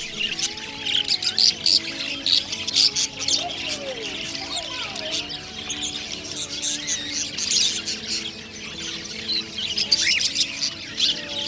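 A crowd of caged budgerigars and other small parrots chattering at once: a dense, unbroken stream of sharp chirps and squawks.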